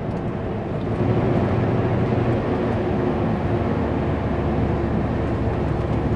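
Kenworth W900L semi truck's diesel engine running steadily under way, with tyre and road noise.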